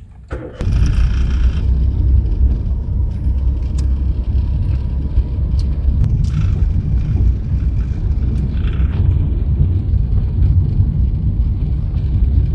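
Steady low rumble of a 2011 Maruti Suzuki Alto K10 on the move, heard from inside the cabin: engine and road noise that comes up sharply about half a second in.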